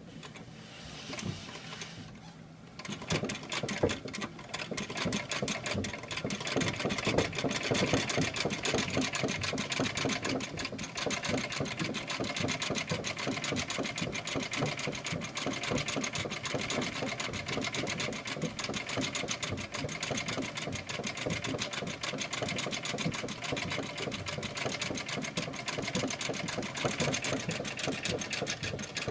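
1865 Florence sewing machine running and stitching: a rapid, even clatter of its mechanism that starts about three seconds in and keeps up steadily.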